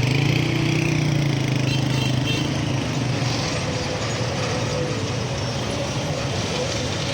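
Diesel engine of heavy construction machinery running steadily, a little louder in the first couple of seconds before settling.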